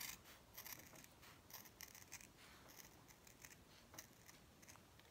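Scissors making a quick series of small, faint snips through stiff craft felt, trimming pieces down.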